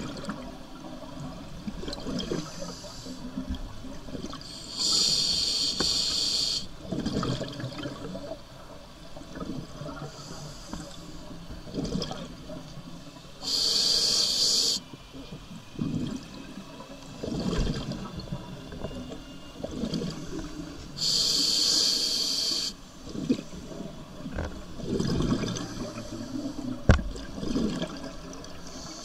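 Scuba diver breathing through a regulator underwater: three sharp hissing inhalations about eight seconds apart, each followed by a low rumble of exhaled bubbles. A single sharp click near the end.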